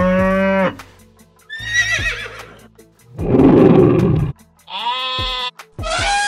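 Recorded animal calls played back one after another as app buttons are tapped: five short calls in turn, most of them pitched and one rough and noisy, with background music beneath.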